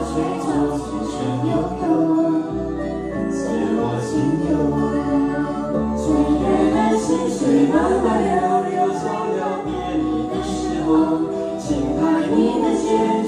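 A karaoke song: singing over a pop backing track with a steady beat.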